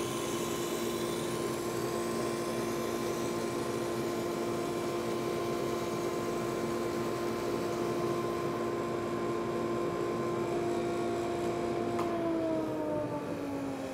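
SuperMax 19-38 combo brush sander running with a wire-brush head as a barn board feeds under it, a steady hum over a high hiss that fades out a little past halfway. About 12 seconds in a click, then the motor winds down with a falling pitch as the machine is switched off.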